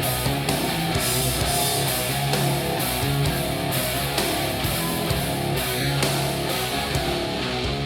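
Guitar-driven rock music with a steady drumbeat, played back through an active desktop speaker and picked up by a recorder's microphone.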